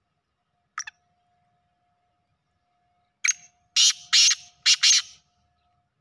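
Black francolin (kala teetar) calling: one short note about a second in, then its harsh call of five loud notes in quick succession in the second half.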